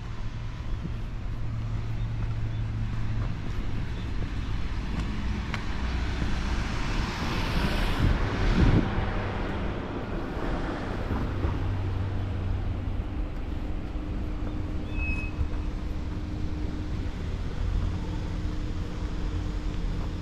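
Road traffic: a steady low engine hum, with one vehicle passing close by, its noise swelling and fading around eight seconds in.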